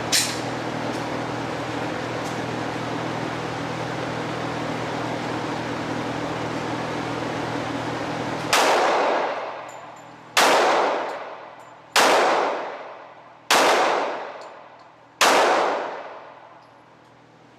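Five shots from a Glock 21 .45 ACP pistol, about one and a half seconds apart, the first about halfway in, each followed by a fading echo.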